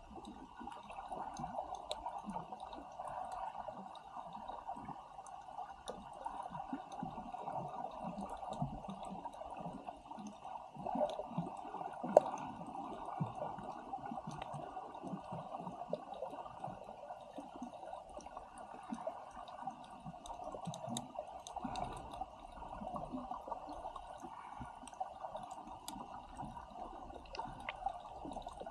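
Muffled sound of water moving around a camera held underwater at a coral reef: a steady dull rush with a fluttering low rumble and many faint scattered clicks, one sharper click about twelve seconds in.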